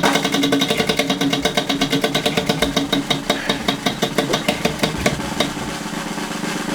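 A spinning prize wheel's pointer clicking rapidly against the pegs. The clicks slow down as the wheel loses speed and fade out about five seconds in.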